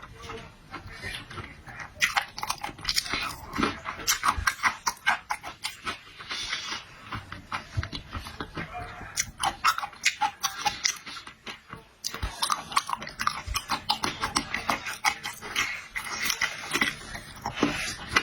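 Close-up chewing and biting of marinated shrimp: dense, irregular wet clicks and smacks from the mouth, with brief lulls near the start and about two-thirds of the way through.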